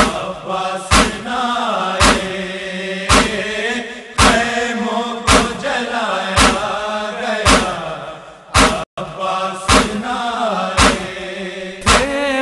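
Chanted noha lament vocals without clear words, drawn out in a mournful melody. Under them a sharp slap lands about once a second, the beat of matam chest-beating that keeps time in a noha.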